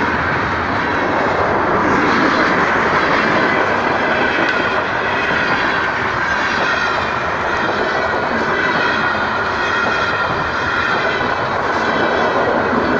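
Freight train of tank cars rolling past at close range: a steady loud noise of wheels running on the rails, with faint high tones wavering over it.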